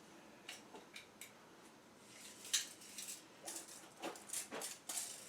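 Sheet-metal heat duct pipe being handled and shifted: a scatter of light clinks and scrapes, busiest in the second half.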